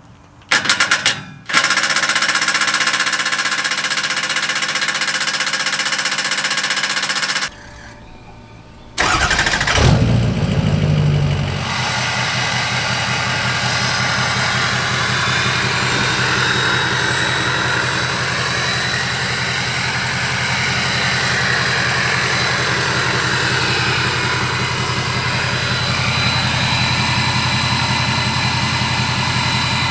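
Ford 6.0 Powerstroke V8 turbodiesel running through a freshly fitted 5-inch MBRP exhaust. It runs, drops out briefly, then fires up about ten seconds in and settles into a steady idle.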